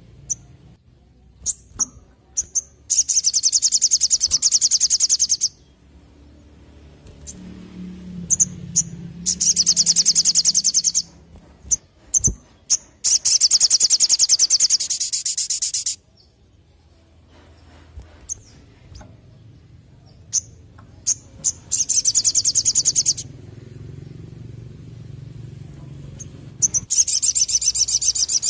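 Male olive-backed sunbird singing: five bursts of fast, high trilling, each one to three seconds long, with short sharp chip notes between them.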